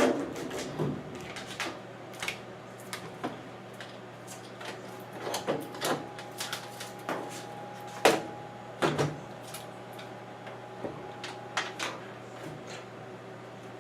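Scattered clicks and knocks of a plastic washer lid lock and its wiring being handled and threaded through the washer's top panel, with the loudest knock about eight seconds in. A low steady hum runs underneath.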